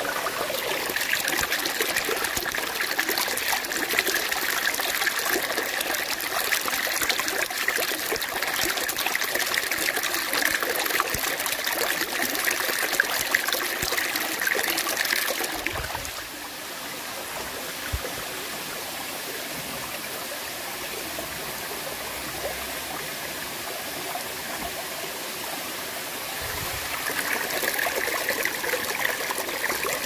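Steady rushing of running water, like a stream. It becomes quieter and duller about halfway through and grows louder again near the end.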